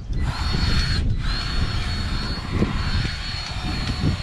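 Compressed-air tool running with a loud steady hiss and a thin high whine, over a low rumble. It cuts out for a moment about a second in, then starts again.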